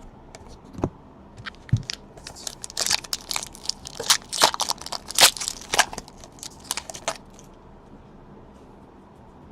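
A trading card pack wrapper being torn open and crinkled, a busy run of sharp crackles lasting about five seconds before it stops.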